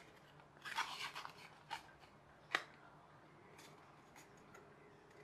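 Polystyrene foam wing being handled and pushed into a 3D-printed plastic wing mount: faint scattered rustles and rubs of foam on plastic, with a sharp click about two and a half seconds in.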